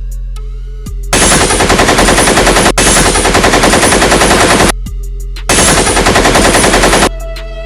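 Two long bursts of rapid automatic gunfire. The first starts about a second in, runs for about three and a half seconds and breaks off briefly partway through; the second is shorter and comes near the end.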